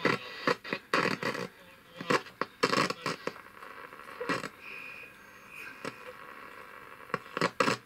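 Roberts RFM3 transistor radio's loudspeaker crackling and scratching in irregular bursts as its quite noisy volume control is turned, the sign of a dirty volume potentiometer. A brief high whistle comes through about halfway.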